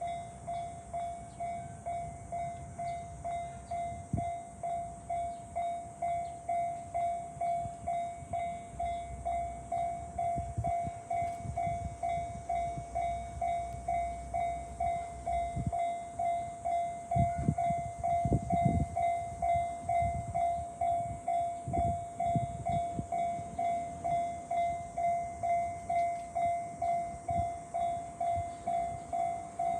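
Japanese railroad crossing warning bell dinging at a steady, even rate. A train rumbles past with low knocks through the middle.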